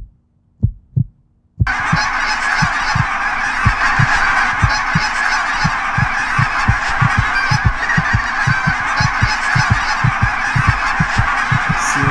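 A large flock of geese calling all at once: a dense, loud din of honking that starts suddenly about a second and a half in. Underneath, a deep thump repeats a few times a second.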